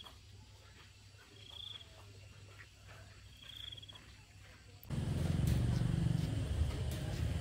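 Faint outdoor background with a short high chirp repeated about every second and a half. About five seconds in it gives way abruptly to a much louder, steady low rumble.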